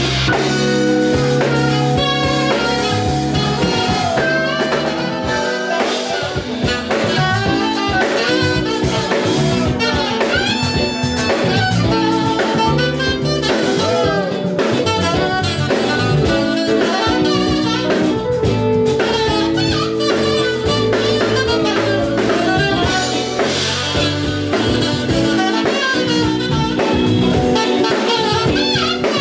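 Live jazz-blues band: a saxophone plays lead over drum kit and keyboard.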